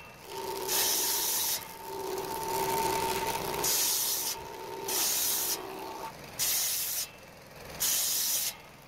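Table saw's circular blade running with a steady whine and cutting palm wood in about five short, hissing passes, each cut lasting under a second.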